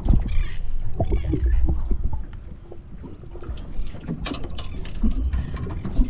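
Low rumble of wind on the microphone aboard a small fishing boat, with scattered knocks and clicks of gear being handled, a cluster of them about four seconds in.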